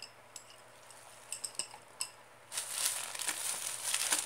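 Small hard items clicking and clinking lightly a few times, then plastic packaging crinkling and rustling steadily from about two and a half seconds in as it is handled.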